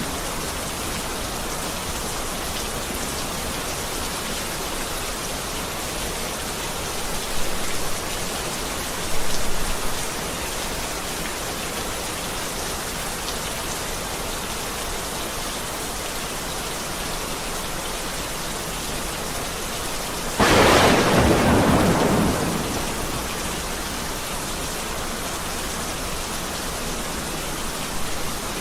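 Heavy rain falling steadily, with a sudden loud clap of thunder about two-thirds of the way in that rumbles away over a couple of seconds.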